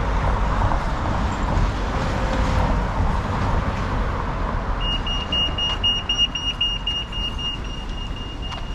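Road traffic passing at a junction, then about five seconds in a pedestrian crossing's audible signal starts: a high-pitched rapid beeping that tells pedestrians it is safe to cross.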